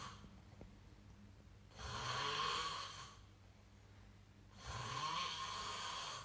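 A man snoring in his sleep: one long snore about every three seconds, one about two seconds in and another starting near the end.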